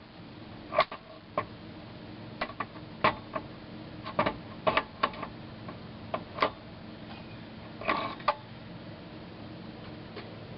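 Irregular clicks and taps of plastic dashboard parts being handled while a wedge-type bulb and its socket are twisted out of an old Chevrolet truck instrument cluster, with a small cluster of clicks about four to five seconds in and again near the eighth second.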